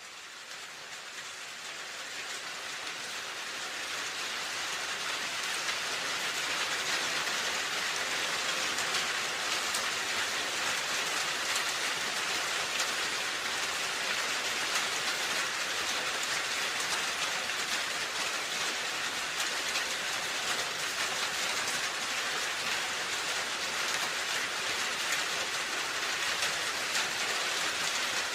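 Steady rain falling on a roof: an even hiss of drops with fine scattered patter. It fades in over the first few seconds, then holds steady.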